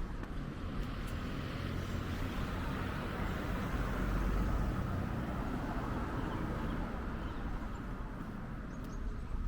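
A car passing along the street: a steady rush of engine and tyre noise that swells to its loudest about four seconds in and then slowly fades.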